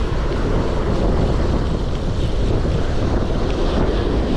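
Wind buffeting the microphone, a steady low rumble, with ocean surf washing behind it.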